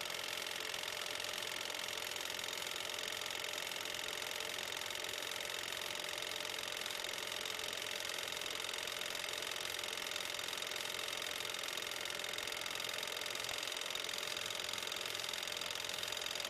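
1960s Sekonic 8mm cine film projector running steadily while projecting film, its motor and film-advance mechanism making an even mechanical whir and chatter. It is playing normally.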